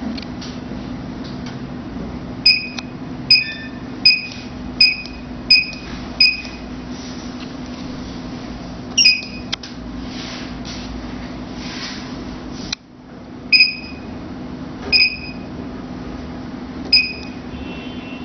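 Key-press beeps from the touchscreen of a lipo laser cavitation slimming machine: six short beeps in quick succession, about one every 0.7 s, as a passcode is keyed in, then single beeps a few seconds apart as menu buttons are pressed. A steady low hum runs underneath.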